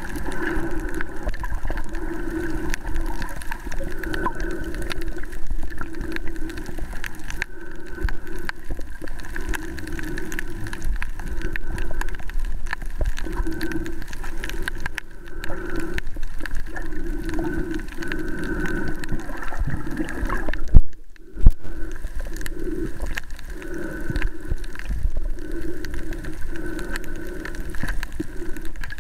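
Muffled underwater water noise picked up by a submerged camera: a steady rushing hum that swells and fades irregularly. Two sharp knocks about two-thirds of the way through.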